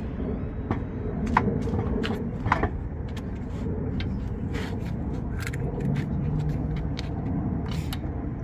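Scattered metallic clicks and knocks as the wheel is handled and refitted to the car, over a steady low rumble; two louder clanks with a short ring come about one and a half and two and a half seconds in.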